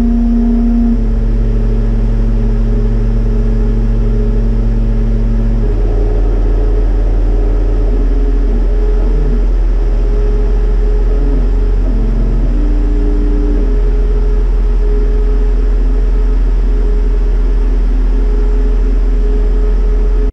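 CO2 laser cutter running a cutting job: the gantry's stepper motors whine in steady tones that jump to a new pitch every few seconds as the head changes direction and speed, over a constant low hum from the machine.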